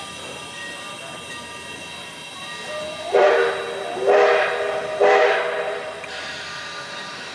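Locomotive horn sounded in three short, loud blasts about a second apart, each a steady chord of several notes.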